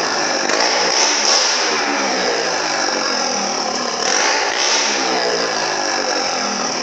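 Motorcycle engine revving inside a wooden wall-of-death drum, its pitch rising and falling over and over as the bike circles the wall.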